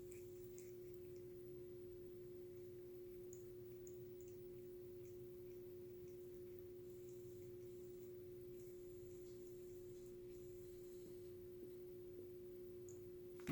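Near silence: a faint steady tone at one pitch, with a few very faint ticks.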